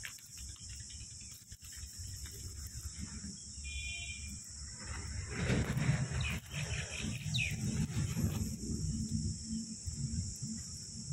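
Outdoor ambience: a steady high drone of insects, with a short bird call twice. From about halfway in, a louder low rumbling noise.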